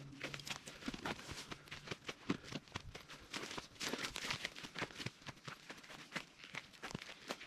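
Footsteps through brush on rocky, overgrown ground: an irregular stream of crunches, crackles and snaps as boots tread on dry vegetation and twigs and leaves rub past. A low steady hum underneath fades out about two seconds in.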